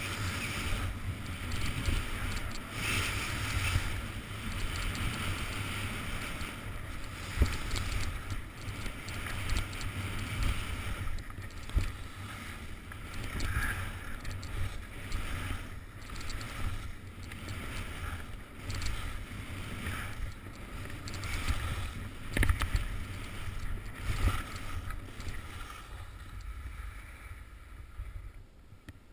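Skis scraping and carving through soft, chopped spring snow over small moguls, with wind rumbling on the microphone and a few sharp knocks from the bumps. It gets quieter near the end.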